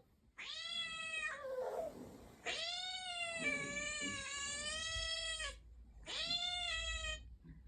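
Domestic cat meowing: three long, drawn-out meows, the middle one lasting about three seconds.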